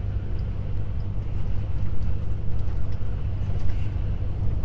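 Truck driving at highway speed, heard from inside the cab: a steady low diesel engine drone with road and tyre noise.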